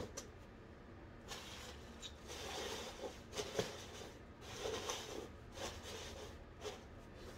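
Bubble wrap rustling and crinkling against the cardboard as it is tucked in around items in a cardboard box, in short irregular bursts with a few light knocks.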